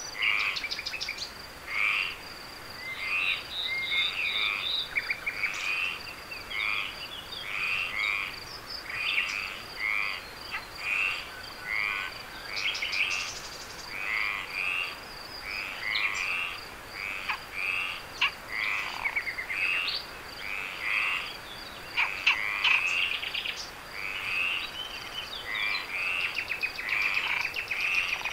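Frogs calling at night: short croaks repeating about once a second, over a steady high-pitched insect note.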